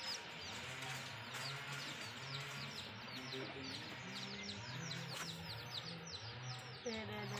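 Small birds chirping, a quick run of short, high, falling chirps repeated several times a second, over a low background murmur.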